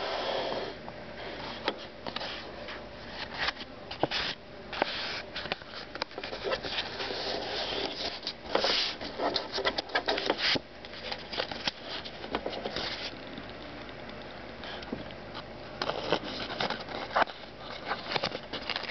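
A thin card panel cut from a butter package being folded, creased and slid on a tabletop by hand: irregular rustling and scraping with many small sharp clicks.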